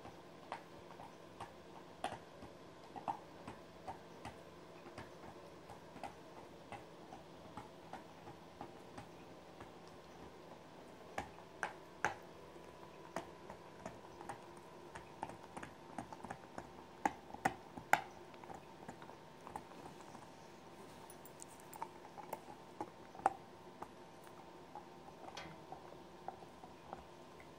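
Dog nibbling and chewing at a blanket: quiet, irregular clicks and smacks of teeth and mouth, with a few louder clicks in the middle.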